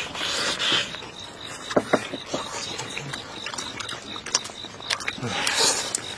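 Close-up eating sounds from tearing into a braised beef rib in tomato sauce by hand: wet chewing and scattered lip smacks, with sucking sounds at the start and again near the end as meat and sauce are sucked off the bone and fingers.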